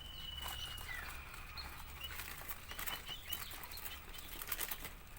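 Small cage birds in an aviary: a held high whistle near the start, then many short high chirps, with wings flapping and fluttering.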